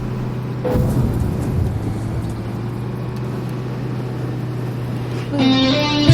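Bus engine running with a steady low drone. Music starts playing near the end.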